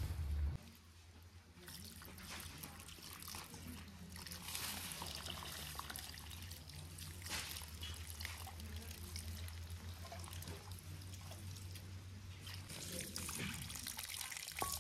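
Water running from a garden hose into a metal bowl of dried herbs as they are rinsed, splashing and trickling; near the end the water and herbs are tipped out through a plastic colander.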